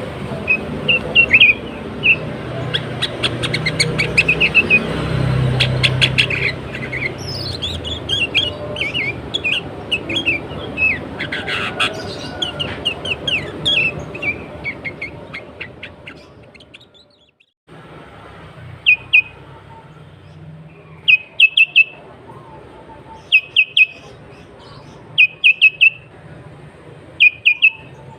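Sooty-headed bulbuls calling: busy overlapping chirps over a low rumble, then, after a sudden break about two-thirds of the way in, short bursts of about three quick notes repeated every couple of seconds.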